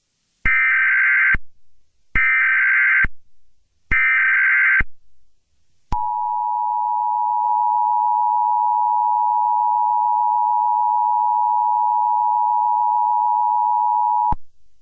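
Emergency Alert System header tones: three one-second bursts of SAME digital data tones, then the EAS two-tone attention signal held steady for about eight seconds before cutting off, the signal that an emergency broadcast message follows.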